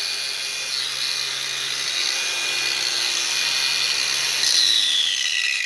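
Aldi Ferrex 40-volt cordless angle grinder with a disc fitted, running free with no load in a steady high whine. About four and a half seconds in it is switched off and the whine falls as the disc winds down.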